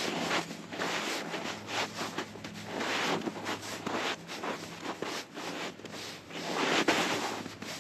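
Footsteps in snow at a steady walking pace, about two steps a second, the loudest a little before the end.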